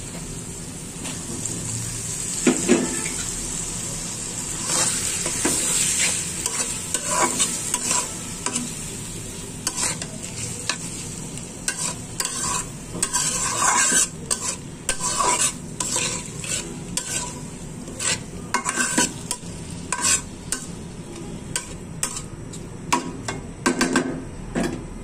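Small shrimp and spice masala frying in oil in a metal wok, a steady sizzle, with a spatula stirring and scraping the pan in short strokes that come much more often from about ten seconds in.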